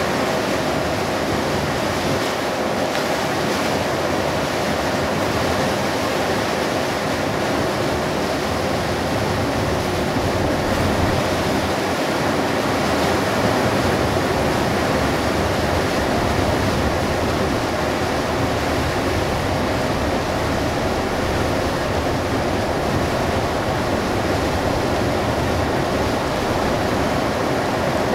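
Steady rushing noise inside a Hino Selega HD coach driving through heavy rain: tyres on the flooded road and rain on the bus, with a low engine rumble underneath. It holds even throughout.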